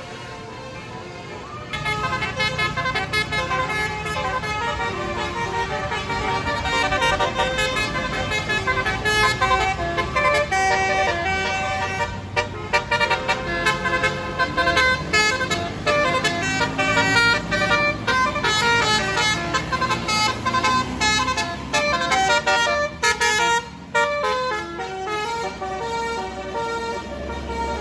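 Bus telolet horn (Basuri) playing a tune of quick stepping notes, starting about two seconds in and breaking off briefly twice, over a bus engine's low running.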